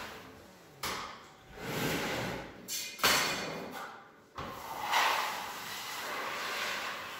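Hand scraper dragged across hardwood floorboards in repeated pulls, scraping a layer of old residue off the wood. The strokes are uneven, with a sharp scrape about three seconds in the loudest.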